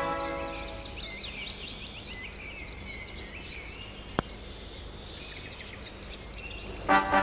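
Birds singing and chirping, as music fades out at the start. A single sharp click comes about four seconds in, and music starts again near the end.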